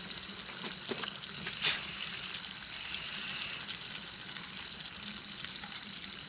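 Chicken curry frying in a pan on a portable gas-canister stove: a steady hiss and sizzle, with one short click about one and a half seconds in.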